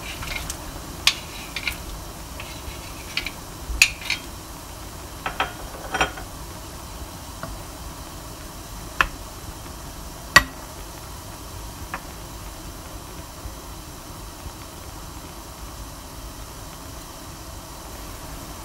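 Tomato-chili sauce boiling in a ceramic-coated pan with a steady hiss. Sliced sausage is tipped in and stirred with a wooden spatula, giving scattered clicks and knocks against the pan over the first twelve seconds, the loudest about four and ten seconds in.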